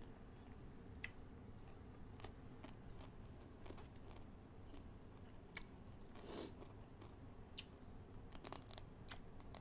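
Faint, scattered clicks and crunches of fingers picking through a metal tray of papaya salad with pickled egg crab shells, with a short breathy sound about six seconds in and chewing near the end.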